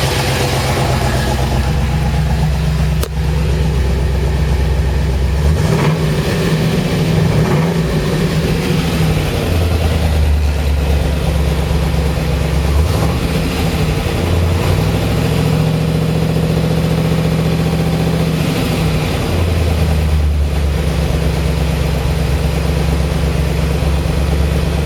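A 1969 Camaro Z/28's 302 V8 idling, with its pitch rising and falling several times as the throttle is opened and let back.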